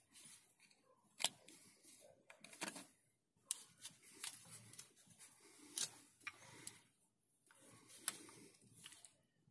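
Faint scattered clicks and scrapes of a thin metal tool and hands working at the rubber guide-pin boots of a Volkswagen Golf 2 brake caliper, prying them out. A sharp click about a second in is the loudest.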